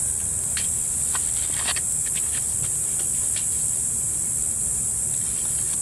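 A steady, high-pitched chorus of insects, with a low rumble underneath and a few faint taps and clicks.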